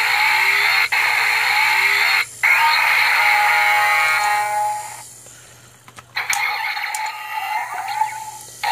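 Kamen Rider Drive Drive Driver toy belt playing its electronic sound effects and tune through its small built-in speaker. A dense burst gives way to a falling sweep of tones that fades out about halfway, then a new burst starts.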